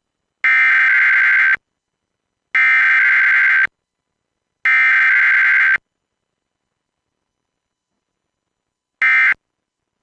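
Emergency Alert System SAME header tones for a required weekly test: three identical bursts of digital data tones, each about a second long with a second of silence between them. After a pause of about three seconds, a shorter burst near the end begins the end-of-message tones.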